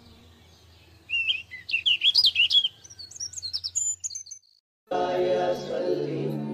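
Small birds chirping in quick, high twittering phrases for about three seconds. After a brief gap, background music with sustained notes starts near the end.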